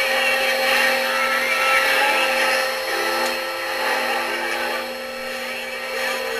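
Galaxy DX 959 CB radio receiving skip: several steady whistling tones over a hiss of static, made as multiple carrier signals cross over each other. Another, lower tone comes in about three seconds in.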